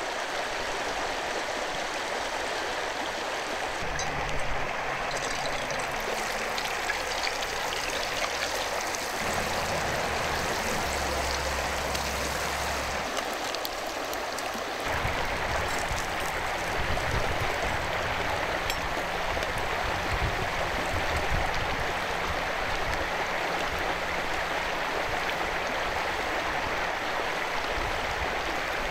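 River water flowing steadily.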